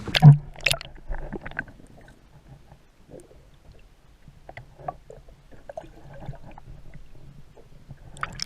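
Knocks and clicks of things being handled in a small fishing boat, with one loud thump just after the start and lighter scattered knocks after it.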